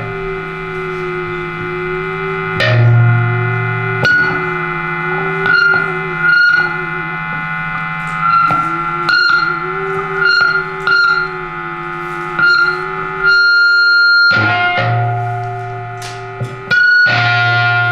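Experimental improvised music on an electric guitar laid flat on the lap and played through effects pedals: sharp plucked or struck notes about once a second over layered, sustained drones, with one wavering tone held underneath.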